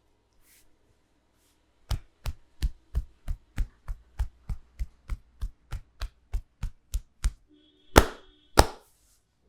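A barber's hands striking in a head massage: a fast, even run of chopping slaps, about three a second, then two louder slaps near the end.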